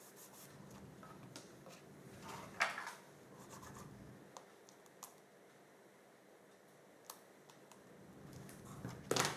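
Pattern paper and cardstock being handled, with faint scattered rustles and small clicks. The two louder rustles come about two and a half seconds in and just before the end.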